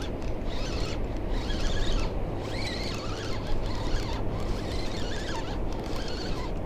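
Fishing reel cranked in short repeated bursts, a whirring with a slight wavering whine, as a hooked fish is reeled in on a bent rod. A steady low rumble of wind and water runs underneath.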